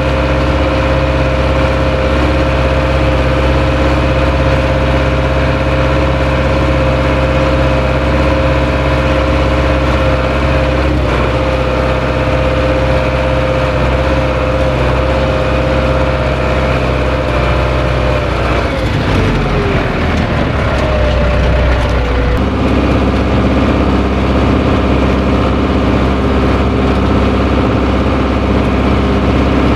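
International 844S tractor engine running steadily under load while pulling a harrow, heard from inside the cab. About two-thirds of the way in, the engine note slides down and wavers, then settles at a lower, steady pitch.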